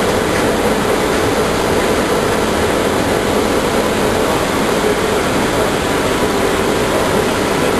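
Gatwick Airport inter-terminal shuttle, a rubber-tyred automated people mover, running along its guideway as heard from inside the car: a steady running noise with a faint, even hum under it.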